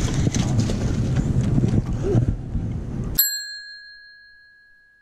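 Wind buffeting the microphone with handling noise, then the sound cuts out about three seconds in and a single bell-like ding chime rings and slowly fades, an edited-in sound effect marking an on-screen note.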